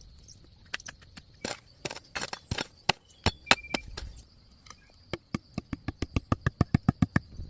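A run of sharp strikes, scattered at first, then a fast steady beat of about five a second from about five seconds in, over a steady high-pitched hum.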